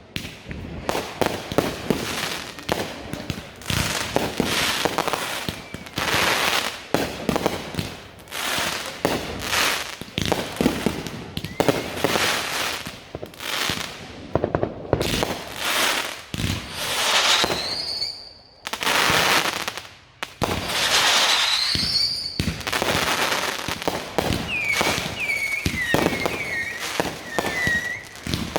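Fireworks going off in rapid succession: a dense run of bangs, pops and crackles. Two rising whistles sound around the middle, and a quick series of short whistles comes near the end.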